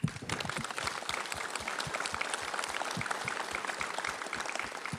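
Audience applauding, many hands clapping at once, starting suddenly and holding steady.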